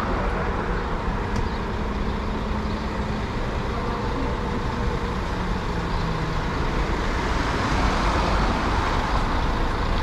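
Street traffic passing close by: vehicle engines running over steady tyre and road noise, with a low engine hum in the first few seconds.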